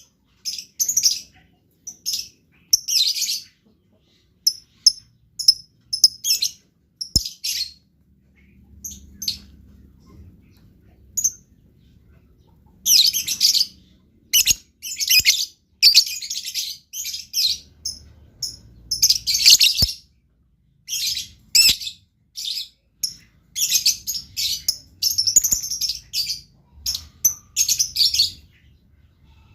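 Lovebird chirping and chattering in short, shrill bursts, with brief pauses between runs and denser, busier runs partway through and near the end. This is the lively, constant calling that keepers call 'gacor'.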